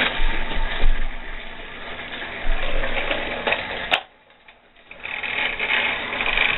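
Battery-powered Thomas & Friends TrackMaster toy train running along plastic track with a steady whirring motor. Near the middle it stops abruptly after a click, and it starts up again under a second later.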